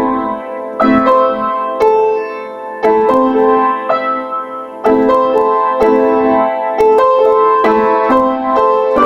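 Piano music: chords struck about once a second, each ringing out and fading before the next.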